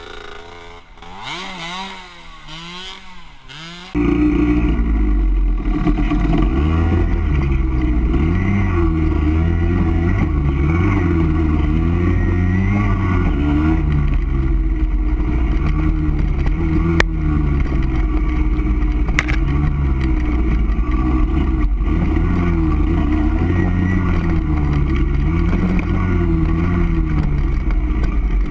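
Off-road vehicle engine running on a trail ride, its pitch rising and falling with the throttle. About four seconds in the sound jumps abruptly much louder, with a heavy low rumble under the engine.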